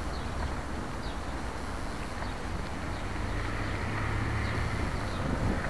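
Steady low rumble of wind on the microphone mixed with bicycle tyres rolling along a paved canal towpath.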